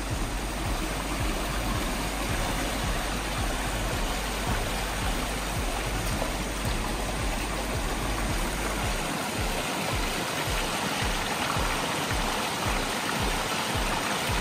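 Small mountain creek rushing and splashing over rocks, a steady wash of water. Background music with a steady low beat runs under it.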